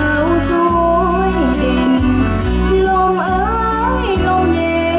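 A girl singing into a microphone, amplified through loudspeakers over instrumental backing music with a steady bass line.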